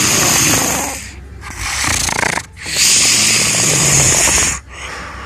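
Very loud, harsh human snoring: long rasping snores, with a second one starting about two and a half seconds in and quieter breathing between.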